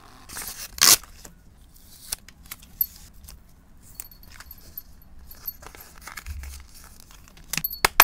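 Thermal-paper receipt torn off a mini printer with a sharp rip about a second in. Light paper rustling and small clicks follow, then a quick run of louder clicks and taps near the end.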